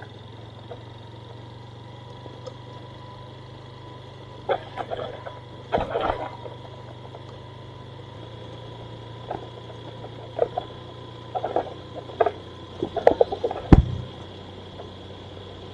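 Honda motorcycle's engine running steadily at low speed on a rough dirt track. Short irregular sounds come over it from about four seconds in, the loudest a sharp knock near the end.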